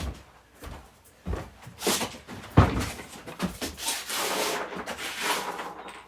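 A few knocks and thumps indoors, the loudest about two and a half seconds in, then a stretch of rustling and shuffling, as things are handled and set down.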